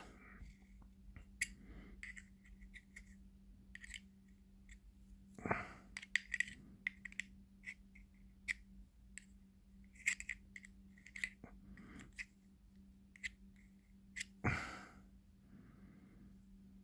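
Small metallic clicks and taps of tweezers working against a Zippo lighter's metal insert while the cotton packing is pushed back in, with two louder handling knocks.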